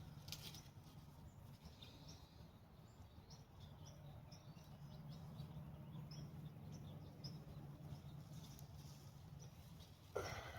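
Near silence with faint, scattered bird chirps over a low steady rumble, and a brief louder sound near the end.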